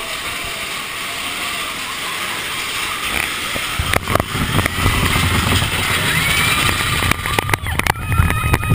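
Big Thunder Mountain Railroad mine-train roller coaster running along its track, heard from a rider's seat: a steady rushing hiss, then about four seconds in a louder low rumble sets in, with rattles and knocks growing busier near the end.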